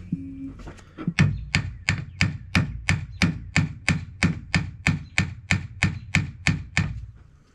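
Gear puller being worked to draw the press-fit drive gear off a Bendix air compressor: sharp metallic clicks in an even rhythm, about three a second, starting about a second in and fading near the end.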